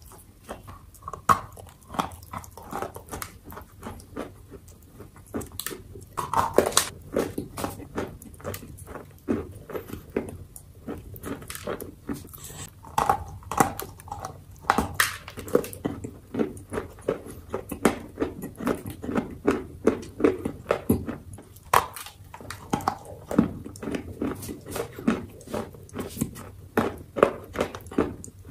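A lump of Ural black clay being bitten and chewed: a steady, irregular run of crunches and crumbling.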